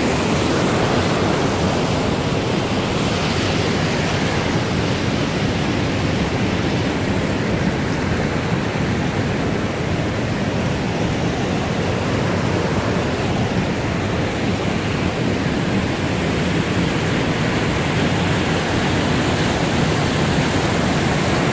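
Creek water rushing steadily over bedrock cascades and through narrow rock chutes: a constant, full rush of white water.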